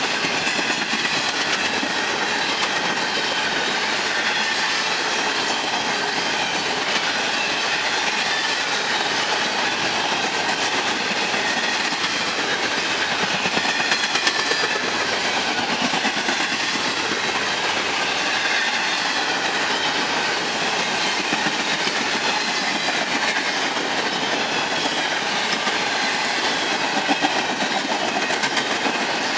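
Empty double-stack intermodal well cars rolling past at speed: a steady rush of steel wheels on rail. The noise swells briefly about halfway through and again near the end.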